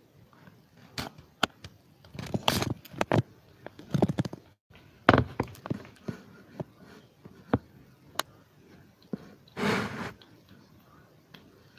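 Handling noise from the camera phone being moved: scattered clicks and knocks with a few short rustles.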